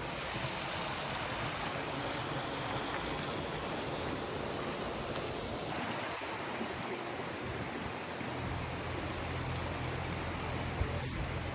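Steady rush of a stream's flowing water.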